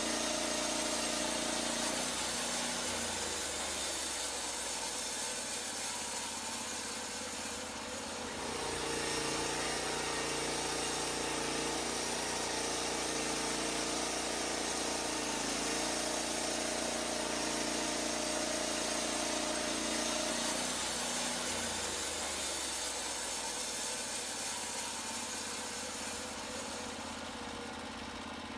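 Portable band sawmill running: the mill's engine drives the band blade with a steady drone and a hissing sawing noise, its tone shifting a few times.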